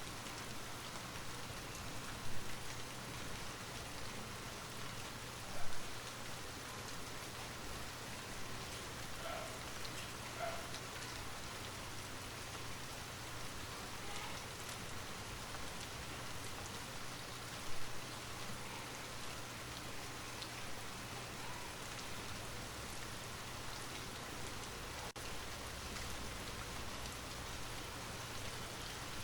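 Light rain falling steadily, with three brief louder moments about 2, 6 and 18 seconds in.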